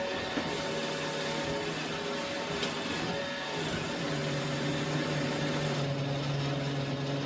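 Roomba robot vacuum running, with a steady motor whine whose pitch shifts down a little about four seconds in.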